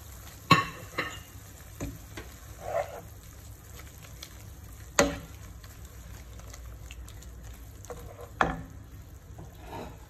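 Wooden spoon stirring sliced beef in a frying pan with a steady low sizzle from the hot pan, its burner just turned off. Several sharp knocks of the spoon against the pan, the loudest about half a second and five seconds in.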